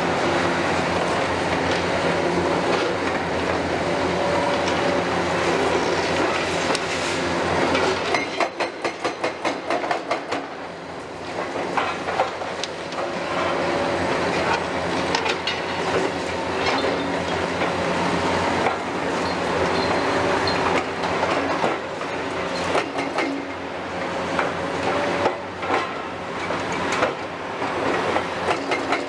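The diesel engines of a Kiesel KMC 600 high-reach demolition excavator and a Hitachi excavator run steadily, with the crunching and clattering of masonry and debris being torn down and falling. About eight seconds in there is a run of rapid, even knocks, about five a second, lasting a couple of seconds.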